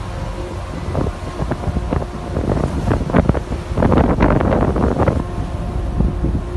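Strong wind buffeting the microphone in irregular gusts over rough, churning sea, with a faint steady engine hum underneath.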